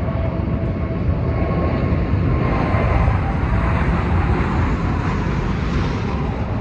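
Twin-engine jet airliner passing low overhead on its landing approach: loud, steady jet engine noise that builds to a peak about halfway through, with a faint engine whine.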